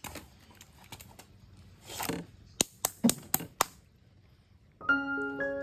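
Handling noise at a wooden chopping block and woven basket: a short rustle, then five quick sharp knocks. Gentle piano music starts about a second before the end.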